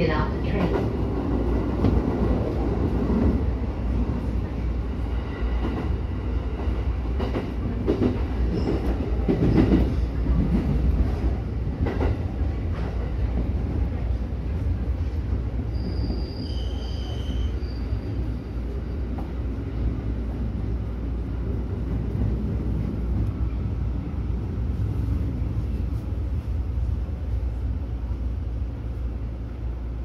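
E231-series electric train running on the rails, heard from just behind the cab: a steady low rumble of wheels and running gear, with several sharp clacks in the first half. A brief high squeal comes about sixteen seconds in, and the rumble grows quieter toward the end.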